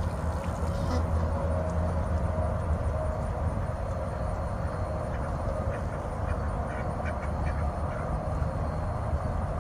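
Domestic ducks quacking in short calls over a steady low rumble.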